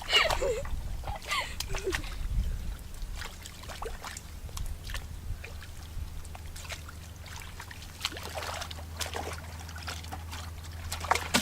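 Shallow water sloshing and trickling in small, irregular splashes, with scattered clicks.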